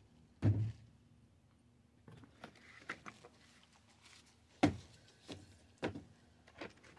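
Cardboard packaging being handled: a cardboard insert lifted out of a box and shifted around, giving a handful of separate knocks and thumps, the loudest about half a second in and near the two-thirds mark.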